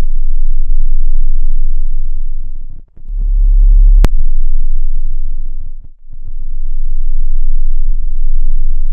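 Deep electronic bass tone that swells and fades in long waves about every three seconds. A sharp click comes about four seconds in.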